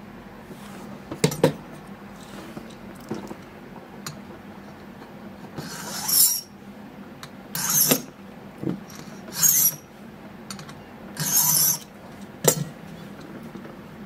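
Hand file scraping across a brass key blank in four separate strokes a couple of seconds apart, cutting down the pin 4 position of a Master Lock No. 1 key during impressioning. There are sharp metal clicks about a second in and again near the end.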